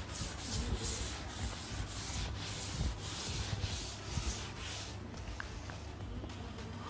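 Blackboard duster rubbed back and forth over a chalkboard, wiping off chalk in repeated strokes, about two a second, growing a little fainter after about five seconds.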